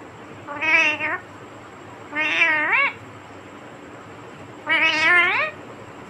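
Indian ringneck parakeet giving three drawn-out, meow-like calls a couple of seconds apart, the second sweeping upward at its end.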